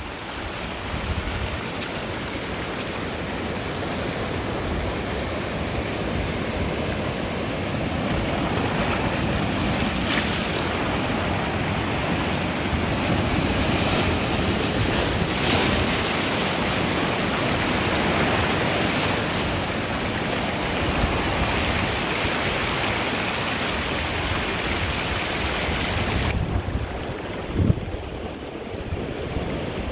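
Ocean surf breaking and washing over shoreline rocks: a steady rushing noise that swells and eases, turning duller near the end.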